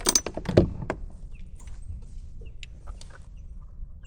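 Handling noise on a plastic fishing kayak: a quick flurry of knocks and clatter in the first second, the loudest a dull thump, followed by a few light clicks.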